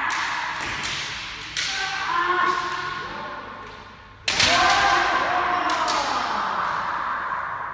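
Kendo sparring: sharp cracks of bamboo shinai strikes and thuds of bare-foot stamps on the floor, with two long drawn-out kiai shouts, one about one and a half seconds in and a louder one after about four seconds that starts with a sharp crack. All of it echoes in a large hall.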